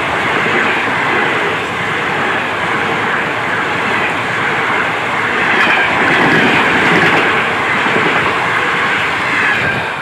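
Indian Railways passenger coaches passing close by at speed on the next track: a loud, steady rush of wheel-on-rail noise that falls away at the very end as the last coach clears.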